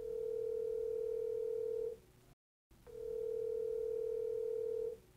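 Telephone ringback tone from a smartphone on speakerphone while an outgoing call rings: two long steady tones, each about two seconds, with a short gap between them.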